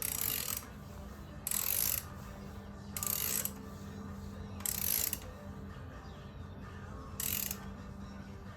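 Ratchet wrench clicking in five short runs about a second and a half apart, tightening a new oil filter on a Harley-Davidson engine. A steady low hum runs underneath.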